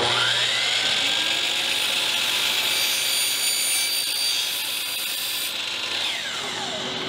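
Electric miter saw switched on, its motor whining up to speed and then cutting through the plastic roadbed of a Bachmann EZ Track section, its rails removed. Near the end the saw is switched off and spins down with a falling whine.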